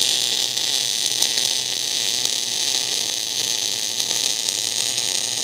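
MIG/MAG welding arc burning steadily with the voltage raised to 19.5 V, a loud, even hiss with no let-up. The higher voltage gives the arc a strong sound and more arc force.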